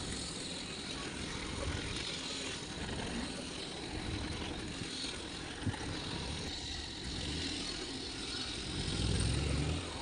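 Suzuki Mehran's small three-cylinder petrol engine running as the car moves slowly over a field. The low rumble grows louder near the end.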